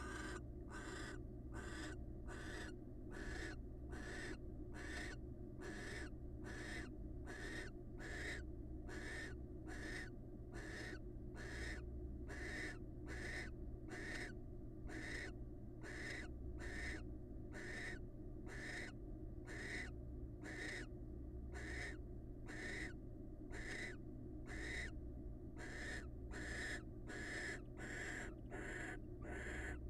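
Barn owl giving a long, even series of short hissing calls, about one and a half a second, over a steady low hum.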